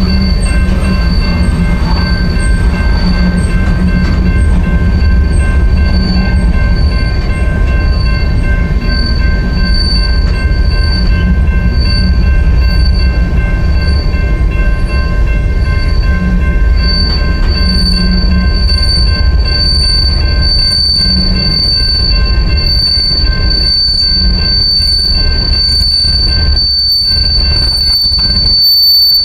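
BNSF freight train rolling past, with a heavy low rumble of wheels on rail and a high, thin wheel squeal from the railcars. The squeal pulses at first and becomes steadier and louder over the last third.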